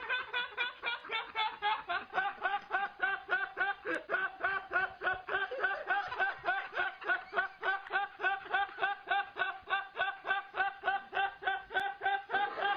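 Rapid snickering laugh, a quick run of even 'heh' syllables at about four or five a second that keeps going without a break.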